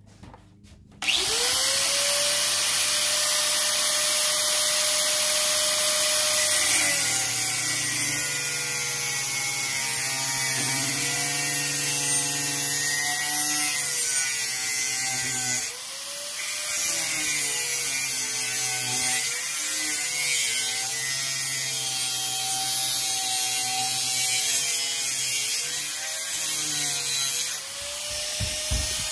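Angle grinder spins up about a second in and bites into a steel pipe held in a vise; its whine drops and wavers under load, rising back in pitch when the disc eases off about halfway and again near the end.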